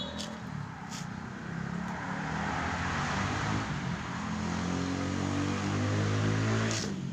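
A motor running with a steady hum and hiss, its pitch slowly rising and growing louder, then stopping abruptly near the end.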